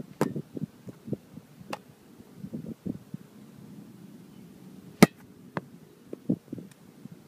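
A few sharp smacks of a thrown football slapping into the catcher's hands, the loudest about five seconds in, with soft thumps and rustle of handling between them.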